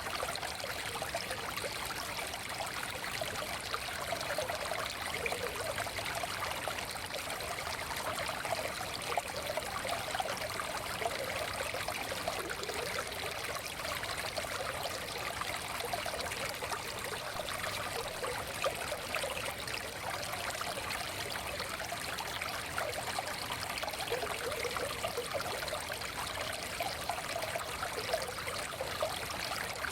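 Small forest stream flowing steadily over stones, a continuous babbling and trickling rush.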